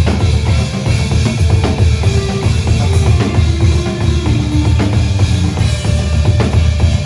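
A band playing live: drum kit with kick and snare hits over a heavy bass line, with short melodic notes on top.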